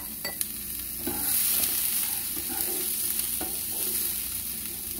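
Diced green beans frying in oil in a nonstick pan and being stirred with a spatula: a steady sizzle that grows louder about a second in, with light scrapes of the spatula. A couple of light clicks at the very start.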